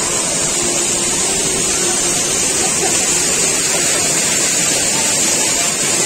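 Steady, unbroken rush of water falling over a waterfall.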